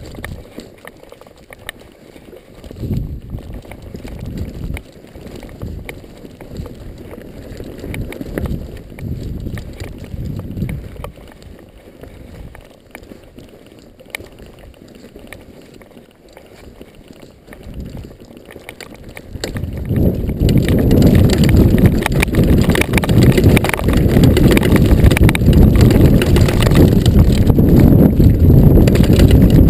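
Mountain bike riding over a dirt singletrack: tyre rumble, chain and frame rattle, and wind buffeting the microphone. It gets much louder and busier about two-thirds of the way through, as the trail turns rockier.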